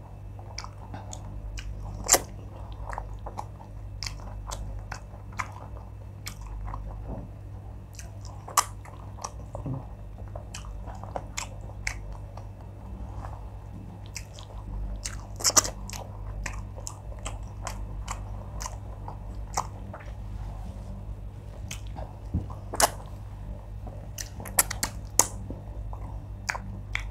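Close-miked chewing of wheat fufu, oha soup and fish: wet smacking and many sharp lip and mouth clicks, a few of them much louder than the rest.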